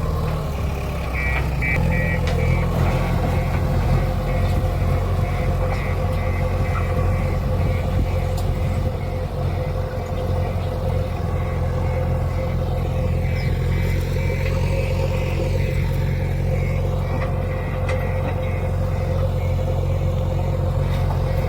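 JCB 3DX backhoe loader's diesel engine running steadily while working, with a steady whine over the engine note. About a second in, a fast, regular high-pitched pulsing starts and keeps going over the engine.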